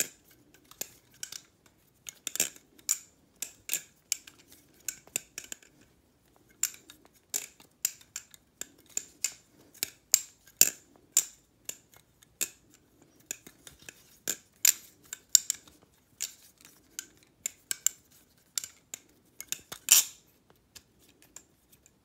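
Balisong (butterfly knife) being flipped: its metal handles clack and click against each other and the blade in quick, irregular runs. There is a short pause about six seconds in, and the loudest clack comes near the end.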